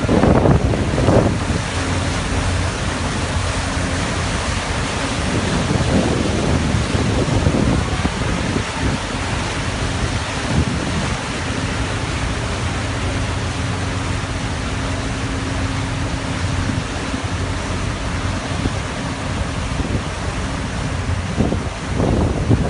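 The Taima Star ferry's engines running, a steady low hum under the rush of water churned up at the stern. Wind buffets the microphone.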